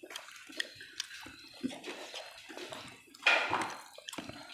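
Close-up wet eating sounds: chewing and smacking with many small clicks, and one louder noisy burst about three seconds in.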